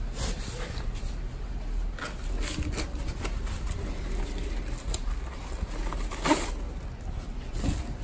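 Packaging being handled: paper wrapping and plastic crinkling, with scattered small clicks and scrapes as a box cutter opens the wrapped AC parts, over a low steady hum.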